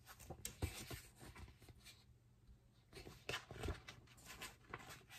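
Faint rustling and soft taps of a picture book's paper pages being handled and turned, with a few slightly louder clicks about a second in and again between three and four seconds in.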